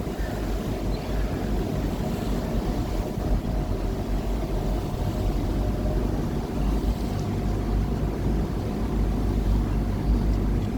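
River tour boat's engine running steadily under way, a constant low rumble with a steady hum above it.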